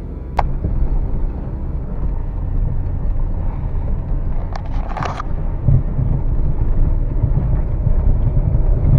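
A Lada VAZ-21099 hatchback being driven along a rough dirt track, its engine and running gear making a steady low rumble that grows louder after a sharp knock about half a second in. A brief hissing scrape comes around five seconds in.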